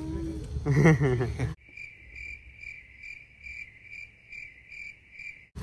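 Cricket chirping at an even pace, about two and a half chirps a second, over a silent background. It cuts in and out abruptly, like a spliced-in clip, after a moment of talk.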